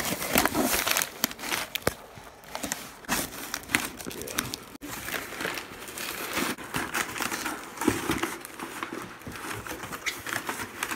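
Tan packing wrap crinkling and rustling as a cardboard shipping box is torn open by hand, with irregular crackles and small knocks of the cardboard.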